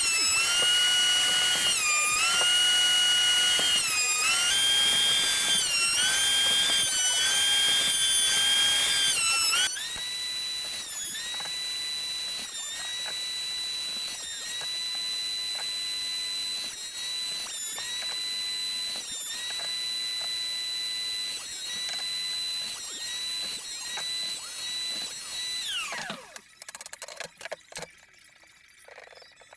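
Electric sander's motor whining as it sands a wooden board. Its pitch sags briefly every second or so as it is pressed into the wood. About ten seconds in it drops in level and runs higher and steadier, then winds down and stops a few seconds before the end.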